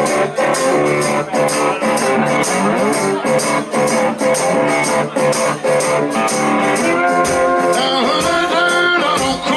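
Live blues-rock band playing: guitar over a steady drum beat, with bending, sliding notes in the last couple of seconds.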